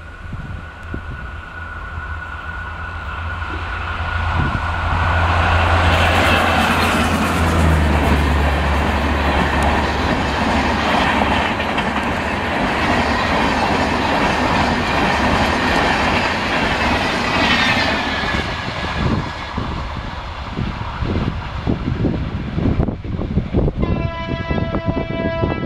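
A WAP 1 electric locomotive and its coaches pass at speed. The loco's low hum swells and drops in pitch as it goes by, then the coaches make a long rush with wheels clattering over the rail joints. Near the end a locomotive horn sounds steadily.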